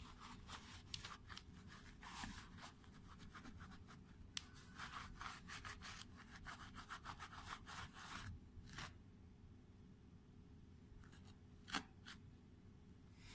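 Microfiber cloth wiping a white ASICS sneaker by hand: faint, quick rubbing strokes, steady for about nine seconds, then a pause and a few more strokes near the end.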